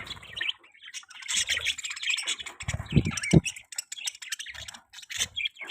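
Budgies chirping and chattering in quick short notes, with a few soft knocks.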